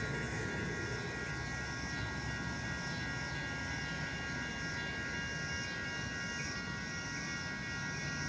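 Metra commuter train approaching on the tracks: a steady low rumble with several steady high ringing tones held throughout.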